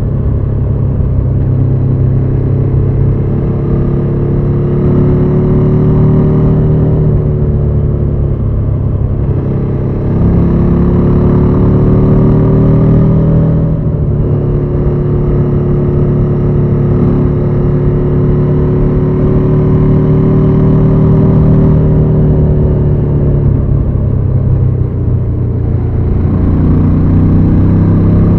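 KTM 790 Adventure's parallel-twin engine running at cruising speed, its pitch easing off and picking up again several times as the throttle changes.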